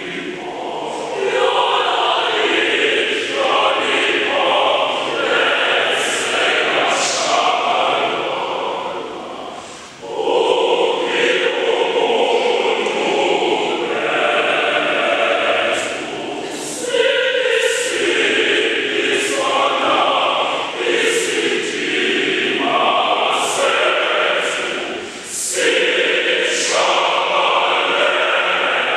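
A choir singing in parts, in long sustained phrases with short breaks between them about ten, seventeen and twenty-five seconds in.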